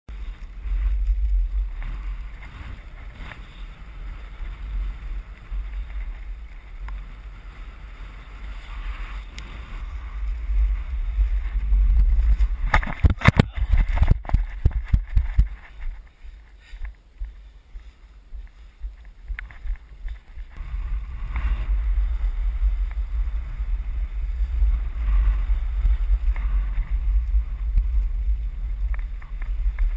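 Wind buffeting an action camera's microphone, a deep rumble with gusts. Around the middle comes a rapid cluster of knocks and rattles, followed by a few quieter seconds before the buffeting returns.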